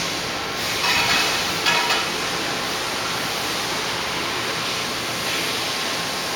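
Steady, even hiss of machine-shop background noise, with two brief louder rustles about one and two seconds in.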